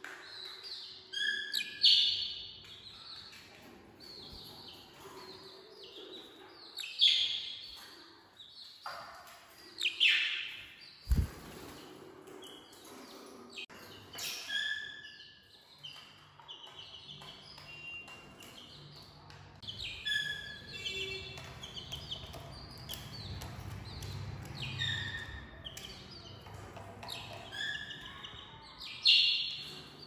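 Budgerigars chirping: short, sharp calls and chatter come again and again, loudest in a few bursts. A single knock sounds about eleven seconds in.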